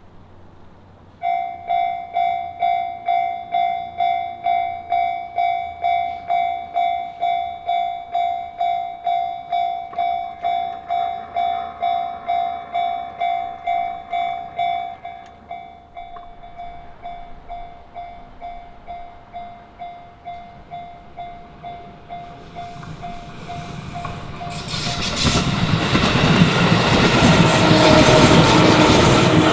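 Japanese railway level-crossing alarm starts about a second in, ringing its repeating electronic bell about twice a second. It grows fainter partway through, and near the end a train passes over the crossing, the rumble and rush of its wheels on the rails building to the loudest point.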